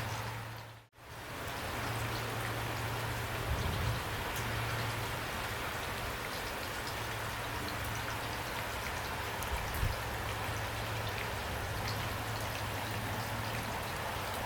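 Heavy rain falling steadily: a dense even hiss of drops with scattered sharper drop ticks over a steady low rumble. The sound briefly fades out and straight back in about a second in.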